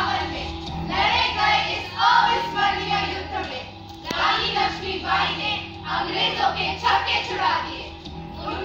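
A chorus of girls' voices singing together in short phrases of about a second each, over steady backing music.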